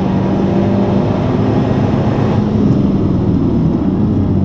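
Honda Civic Type R's turbocharged 2.0-litre four-cylinder engine running at high revs under full throttle, heard from inside the cabin. About two seconds in, the throttle comes off as the car brakes hard, and the engine sound goes duller.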